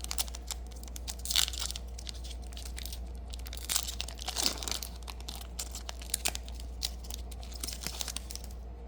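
Foil wrapper of a Yu-Gi-Oh booster pack being torn open and crinkled, in scattered crackles and rustles, over a steady low hum.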